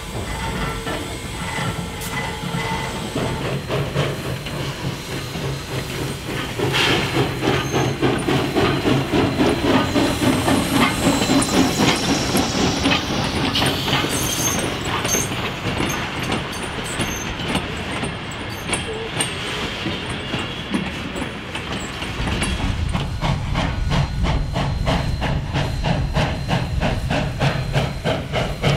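Steam locomotive running under steam: exhaust chuffs in a quick, even beat over a steady hiss of steam, growing louder about seven seconds in.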